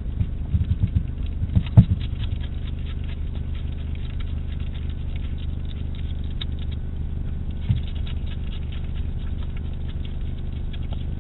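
European hedgehog eating from a dish: rapid chewing and smacking clicks, thickest and loudest in a flurry from about half a second to two seconds in, then lighter and more scattered.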